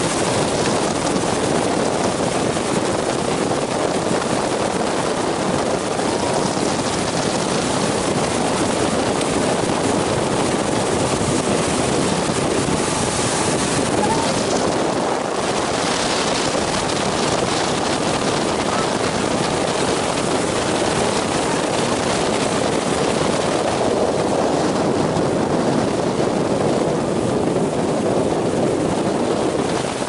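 Motorboat under way at speed: a steady, unbroken drone of the engine mixed with water rushing past the hull.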